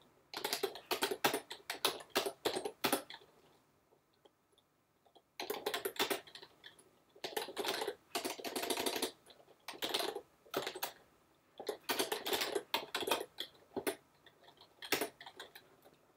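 Typing on a computer keyboard: quick runs of key clicks in short bursts, with a pause of about two seconds near the start.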